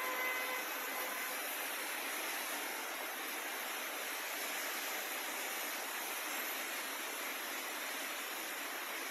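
Heavy rain falling steadily, an even hiss with no thunder. A faint short tone sounds in the first second.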